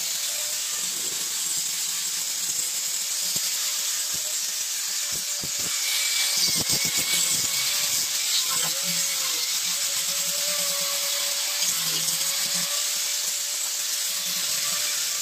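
Electric angle grinder with an abrasive disc sanding carved wood, its motor whining steadily over a gritty hiss. The whine's pitch dips briefly a few times.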